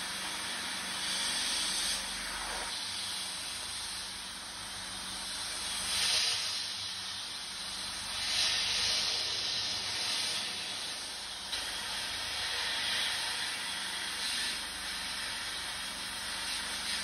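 Sandblasting gun hissing steadily as compressed air drives abrasive against the rusty iron head of a nail puller inside a blast cabinet, stripping the rust. The hiss swells louder several times as the nozzle is moved over the part.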